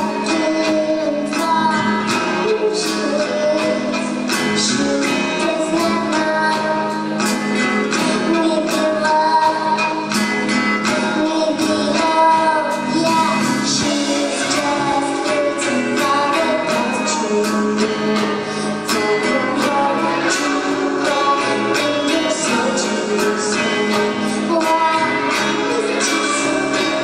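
Live rock band performance: a woman singing lead over electric guitars and a steady drum beat.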